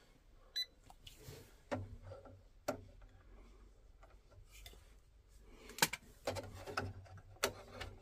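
A short, high electronic beep from a handheld non-contact voltage tester pen about half a second in, followed by scattered clicks and knocks of handling the tester and the boiler casing.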